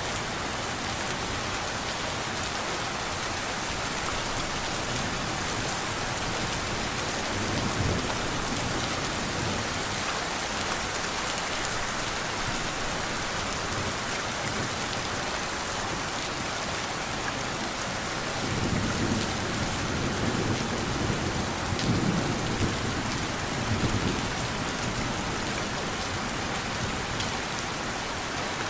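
Steady rain pouring down, with low rolling thunder rumbling briefly about a quarter of the way in and again for several seconds in the last third.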